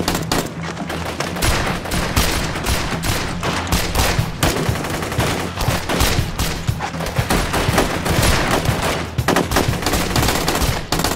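Sustained automatic rifle fire from Kalashnikov-type assault rifles, many shots in rapid overlapping bursts, a heavy exchange of fire.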